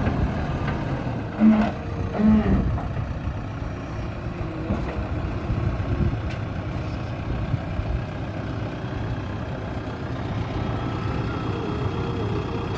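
JCB backhoe loader's diesel engine running steadily, with two short low beeps in quick succession about a second and a half in.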